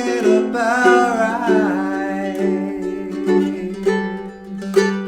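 Ukulele playing chords with a steady plucked accompaniment. A sung note wavers and is held over it for about the first second and a half, then fades, leaving the ukulele alone.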